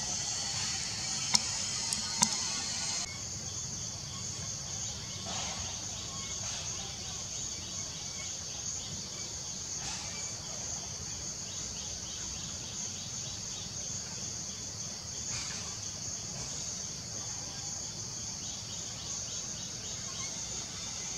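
Steady high-pitched drone of forest insects, with two sharp clicks in the first few seconds.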